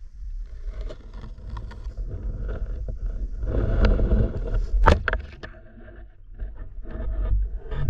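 Water sloshing and churning close to the microphone as a spearfisher moves through the stream, with a sharp snap about five seconds in and scattered clicks near the end.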